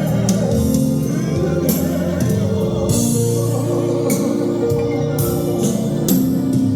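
Worship music: a band with guitar and drums playing held chords, with singing, and regular cymbal or drum hits.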